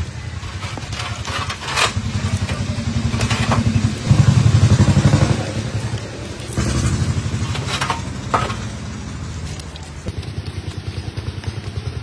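A small engine running with a steady low throb, swelling louder for about a second around four seconds in, with a few sharp knocks over it.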